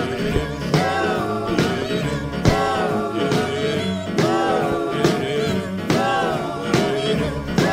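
Background music: a rock-and-roll style song with a steady beat, no live trail sound.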